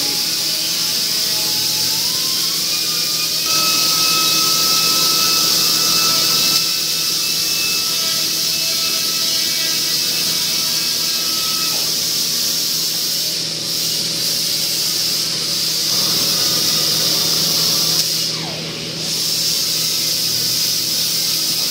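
A steady loud hiss with faint steady hums beneath it, dropping out briefly twice in the second half.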